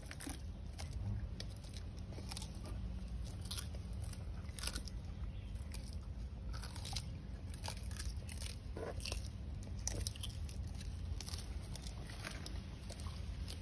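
Sulcata tortoises biting and crunching chopped green stems and leaves: an irregular run of short, crisp crunches from several animals feeding at once.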